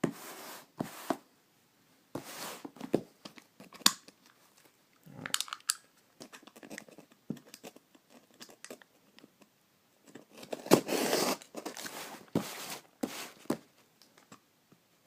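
Plastic wrapping being torn and crinkled off a sealed trading-card blaster box, in a series of short rips and rustles with a sharp click about four seconds in and a longer, louder stretch of tearing near the end.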